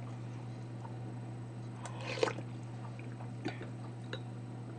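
Eating rice porridge with a metal spoon: small clicks of the spoon against the bowl, and a short wet slurp of porridge about two seconds in. A steady low hum runs underneath.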